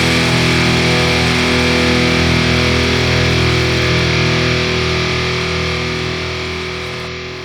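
Background rock music ending on a single held electric guitar chord, which rings on and slowly fades out.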